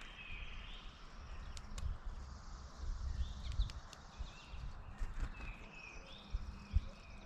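Small birds chirping now and then, with a few scattered sharp taps and an uneven low rumble underneath.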